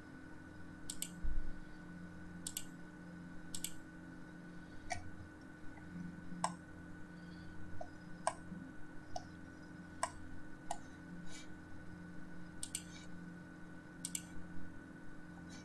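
Computer mouse clicking: about a dozen sharp clicks at uneven intervals, several in quick press-and-release pairs, over a steady faint hum.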